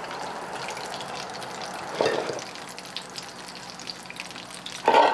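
Breaded fish pieces sizzling steadily in oil in a cast-iron skillet, with two brief louder bursts, about two seconds in and near the end. The oil is not yet hot enough, so the frying is gentle.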